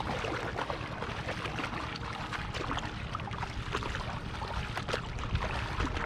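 Feet wading through calf-deep water: repeated irregular splashing and sloshing steps.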